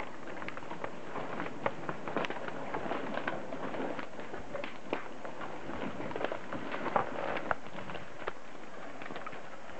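Dry twigs and branches crackling and snapping, many small sharp clicks scattered over a faint steady hiss.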